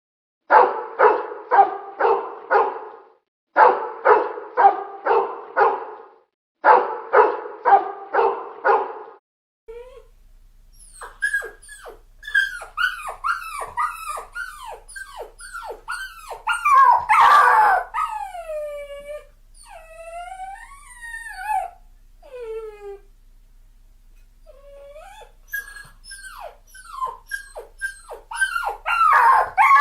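Dog barking in three quick runs of five or six barks each. After about ten seconds it gives way to a dog yipping and whining, with many short calls falling in pitch, some longer howl-like glides, and a loud flurry of yips near the end.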